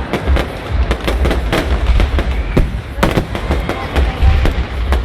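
Fireworks going off: many sharp bangs and pops in quick, irregular succession, some louder cracks about half a second in, three seconds in and at the end, over a continuous low rumble.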